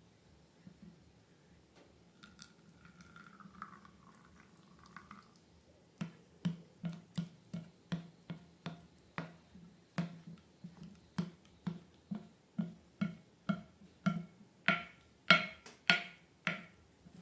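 Slime being squeezed and pressed in a steady rhythm, giving short, sticky clicking pops about three a second. The pops start about six seconds in and grow louder toward the end.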